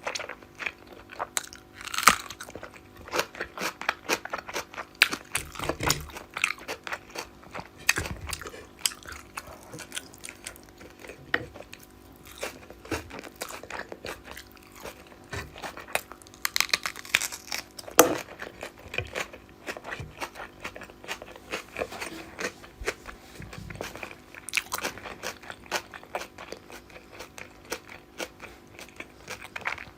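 Close-miked eating sounds: steady chewing of fish curry and rice, with many quick wet mouth smacks and clicks and a few louder crunches, the strongest about two seconds in and again around eighteen seconds.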